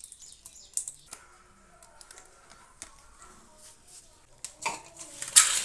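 Kitchen cooking sounds: scattered clicks and taps of utensils on cookware, with a short loud hiss near the end, over faint background music.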